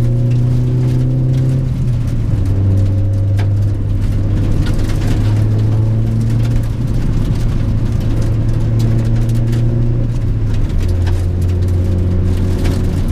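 1997 Honda Prelude's H22A four-cylinder engine droning steadily while driving, heard from inside the car. Its pitch drops a step about two seconds in and again near the end.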